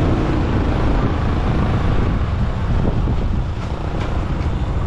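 Motorcycle engine running at riding speed, with wind rushing over the microphone. The engine eases off slightly a little past three seconds in.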